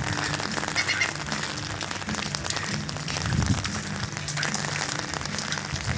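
Music playing over outdoor loudspeakers, its low notes changing every second or so, under a steady noisy hiss.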